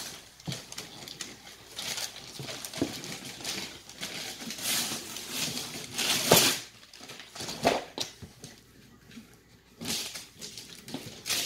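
Rustling and crinkling of wrapping paper and a cardboard gift box being handled, in short irregular bursts, the loudest about six seconds in.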